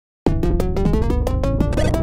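Instrumental music that starts abruptly about a quarter second in: a quick run of short, separate notes over a beat, with the melody climbing near the end.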